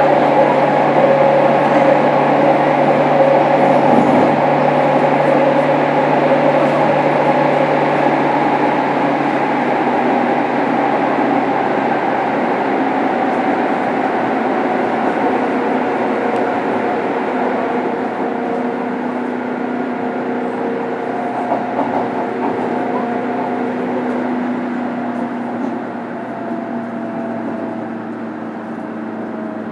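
Running sound inside a 103 series electric train's motor car: rolling noise with steady motor and gear whine tones. In the second half it grows gradually quieter and the whine sinks a little in pitch as the train slows.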